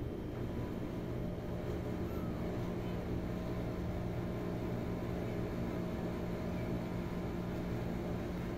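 A steady low mechanical hum with several fixed tones, holding level throughout.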